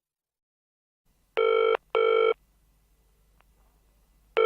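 Telephone ringing with a double ring: two short rings about a second and a half in, and the next ring starting near the end.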